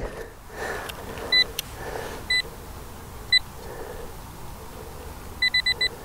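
Handheld metal-detecting pinpointer beeping on a metal target in the dig hole: three short single beeps about a second apart, then a quick run of five beeps near the end as it closes on the target. Soft rustling of hands working the soil underneath.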